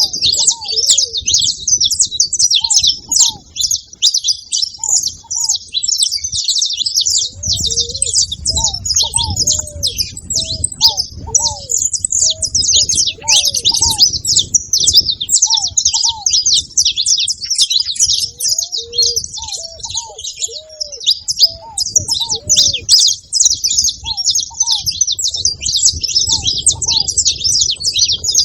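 Several saffron finches singing at once: a dense, unbroken chatter of high chirps and trills. Short, lower-pitched curved calls repeat underneath.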